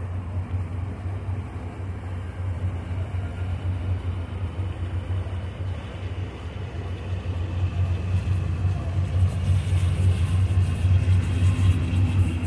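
Large motor yacht's engines running with a steady low drone as it passes close by, growing louder toward the end as a hiss of water wash joins in.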